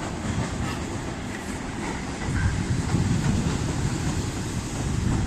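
Suburban electric multiple-unit train running along the track below, with a steady low rumble of wheels on rails that grows louder from about two seconds in.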